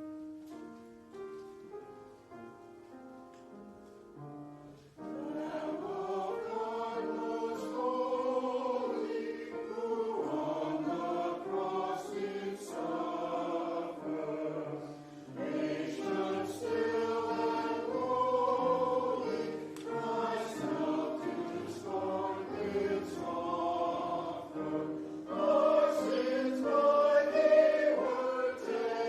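A choir singing a sacred piece with accompaniment, entering about five seconds in after a short instrumental introduction of steady held notes.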